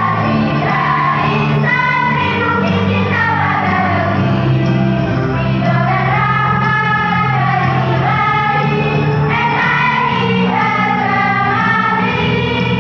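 A choir of young students singing a song over steady, held low accompaniment notes.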